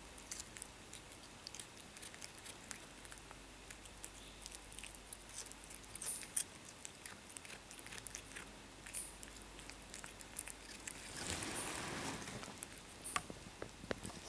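Cat chewing and crunching diced cucumber from a plate: a scatter of faint, small crunching clicks. A louder rustling noise lasts about two seconds near the end.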